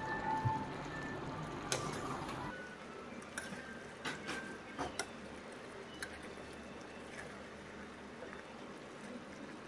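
Steel ladle stirring a thick curry in a metal kadai, with several sharp clinks of the ladle against the pan. Background music plays for the first two or three seconds and then stops.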